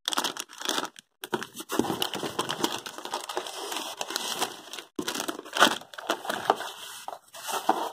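Clear plastic packaging bags crinkling and crackling as they are handled, with the plastic spring clamps shifting inside; one crackle a little past the middle is louder than the rest.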